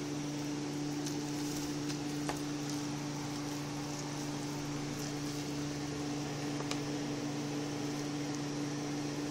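Steady low hum of a running appliance, with a few faint clicks.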